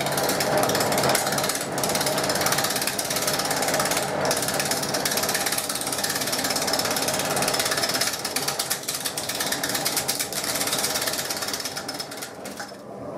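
A woodworking power tool cutting into chestnut wood, with a dense, fast rattling clatter that dips near the end.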